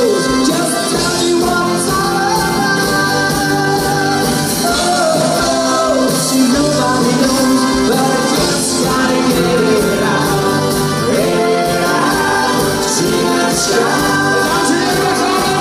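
Live pop band playing a song, with a male lead singer backed by piano, acoustic and electric guitars, bass and drums.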